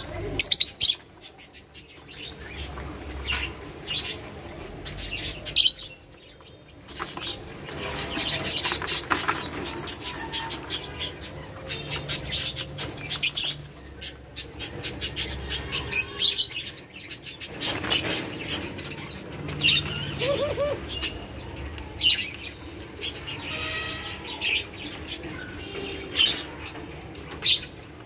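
Pet doves in a wire cage flapping their wings and scuffling in repeated short flurries as two of them fight, with a few short bird calls between the flurries.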